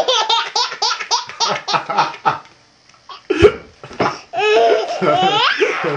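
A baby laughing hard: a quick run of short laughs, a short pause, then a longer laugh whose pitch sweeps up and down.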